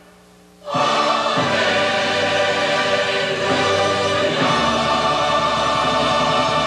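A choir singing with orchestral accompaniment in long held chords. It comes in suddenly under a second in, after a brief near-silent pause, and the chord changes about four and a half seconds in.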